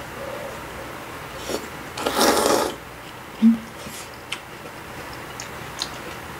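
One loud slurp of hot noodles, about two seconds in and lasting under a second. It is followed about a second later by a short, low hum-like sound. Otherwise there is quiet room tone with a few faint clicks.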